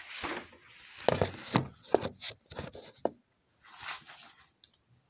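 Handling noise as a handheld camera is moved and set down: rustling with a few sharp clicks and taps over the first three seconds, then a short hiss about four seconds in.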